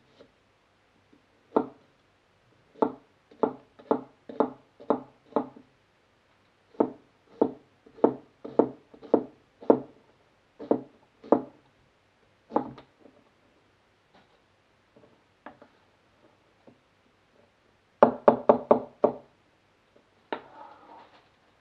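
Kitchen knife dicing an onion on a cutting board: the blade knocks on the board about twice a second in two runs, then a quick burst of rapid chops a few seconds before the end.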